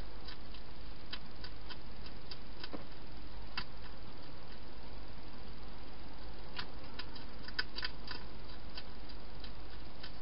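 Wild hedgehog chewing food from a bowl: irregular sharp crunching clicks, singly and in small clusters, over a steady hiss.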